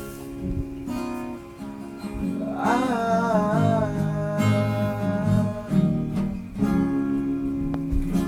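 Acoustic guitar strummed in a slow song, with a voice holding a long, wavering note in the middle.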